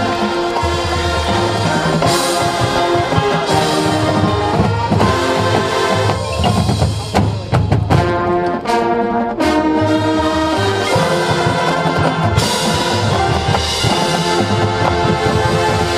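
High school marching band playing: full brass chords over marching drums and front-ensemble percussion, thinning briefly a little past halfway before the full band comes back in.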